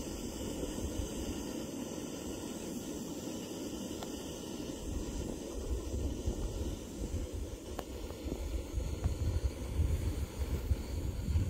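Wind buffeting the microphone: an uneven low rumble over a steady outdoor hiss, gustier in the second half, with a few faint clicks.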